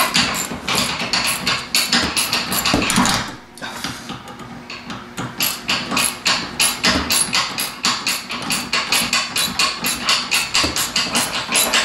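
Hand ratchet wrench clicking rapidly and evenly as the seat-track bolts are turned out, with a short pause about three and a half seconds in before the clicking resumes.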